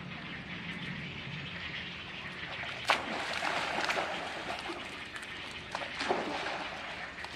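A young macaque leaps into a pond: a sharp splash about three seconds in, followed by a second or so of churning water. A shorter burst of splashing comes about three seconds later, over a steady background hiss.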